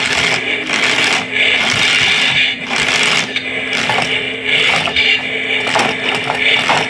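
Toy radio-controlled monster truck's small electric motor and gearbox whirring, surging on and off as it drives back and forth over a plastic ramp.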